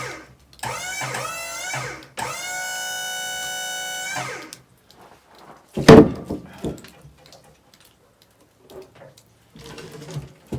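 Electric guitar music: a few bending notes, then a note held for about two seconds. Just before six seconds in comes one sharp loud thump, followed by a few faint scattered knocks.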